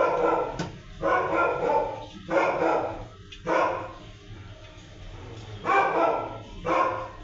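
Dog barking repeatedly, about six loud barks with a pause in the middle.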